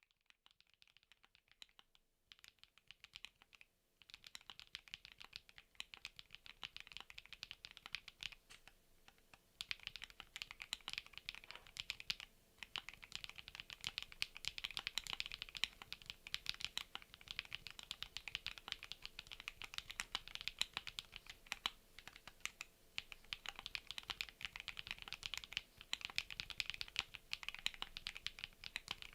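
Typing on a Chilkey PAW 65 mechanical keyboard with HMX Jammy linear switches, PBT keycaps and an FR4 plate: rapid clacks of keys pressed and bottoming out. The typing is sparse and quiet for the first several seconds, then fast and near-continuous from about nine seconds in, with a short pause partway through.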